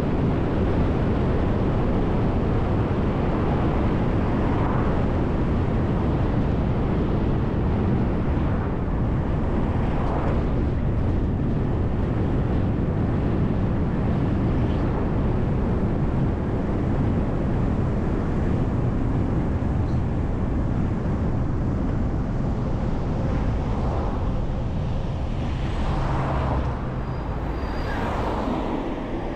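City bus on the move: steady engine and tyre noise on the road.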